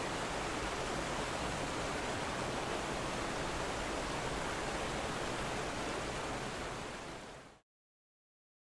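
Steady rushing of running water, fading out about seven seconds in and then cutting to silence.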